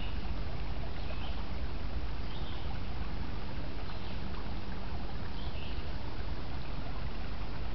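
Steady rush of a small creek's water running and trickling over rocks.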